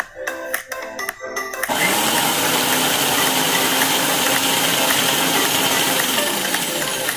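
Electric mixer grinder running steadily with a dense, even whir. It switches on abruptly about a second and a half in and stops near the end. Background music plays before it starts.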